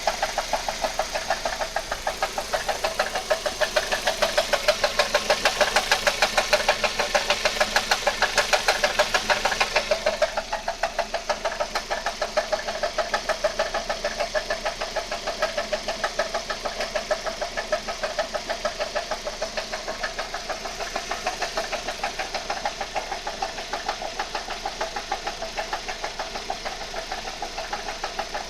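1.8T turbocharged engine running with a regular knock, about six a second, keeping time with the engine. The knock is louder and sharper for the first ten seconds, then steadies slightly quieter. Its cause is unknown to the owner.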